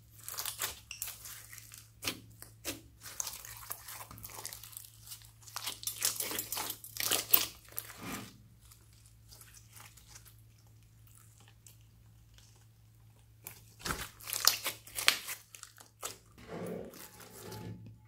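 A large mass of glossy slime with foam beads being squeezed and stretched by hand, giving sticky squelches and crackly pops in irregular clusters. There is a quieter stretch in the middle.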